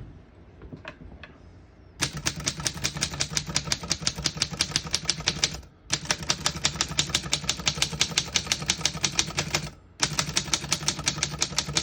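1931 Corona Four portable typewriter being typed on: a fast, even run of key strikes starting about two seconds in, broken by two short pauses, after a couple of faint clicks.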